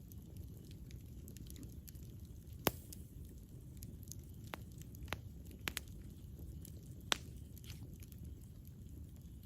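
Campfire burning: a low, steady rumble of flames with scattered sharp crackles and pops from the burning wood. The loudest pop comes just over a quarter of the way in, and a cluster of smaller ones follows.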